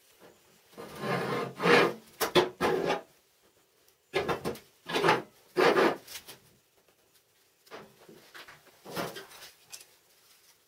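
A small steel carriage on bearing rollers run back and forth along a steel angle-iron rail, metal rolling and rubbing on metal, in three spells of a second or two each.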